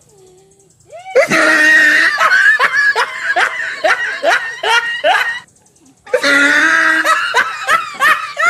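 Loud, close laughter in two long fits: one starting about a second in, and another after a short pause, about six seconds in.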